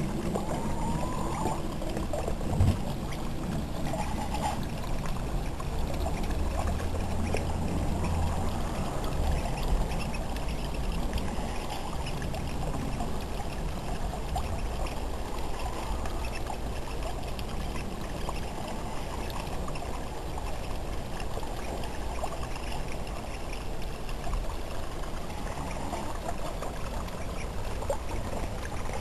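Water running and trickling steadily into a small rock-lined garden pond, with a brief bump about three seconds in.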